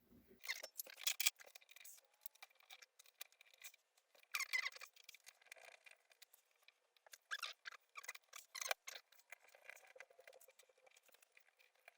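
Faint, scattered clicks and scrapes of laptop plastic parts and small hardware being handled during disassembly, coming in short irregular clusters.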